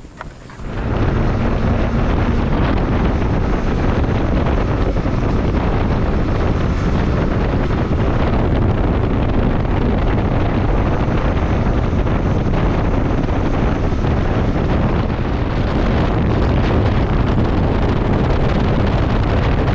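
Wind buffeting the microphone on a moving motorcycle, a steady loud rush with road and engine noise underneath; it starts about a second in.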